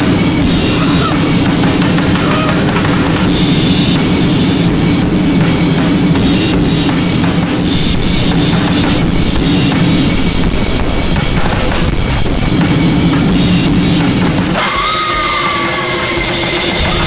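Harsh noise music: dense, loud noise over a steady low drone. About fourteen and a half seconds in it changes abruptly: the low drone drops out, leaving a thinner texture with a falling whine.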